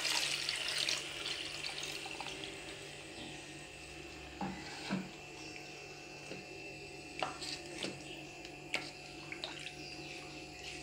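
Coconut milk pouring and splashing into a bell-metal uruli, fading out over the first two seconds, then a wooden spoon stirring the payasam with a few light knocks against the pot.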